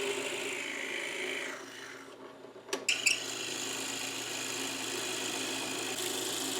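Power drill boring holes through clamped maple blocks, running steadily. It eases off briefly about two seconds in, with a sharp click near three seconds, then runs on.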